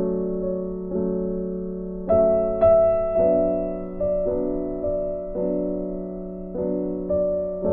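Background piano music: soft chords struck about once a second, each ringing and then fading.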